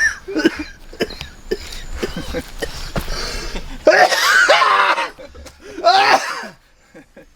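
A person's loud vocal outbursts without clear words, a longer one about four seconds in and a shorter one about two seconds later, after a stretch of scattered clicks and handling noise.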